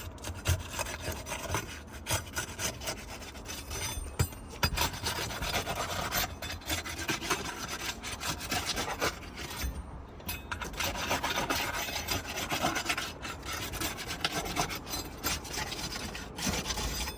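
Asphalt roof shingle being pried and worked loose: continuous scraping and rubbing with short pauses, the longest about ten seconds in.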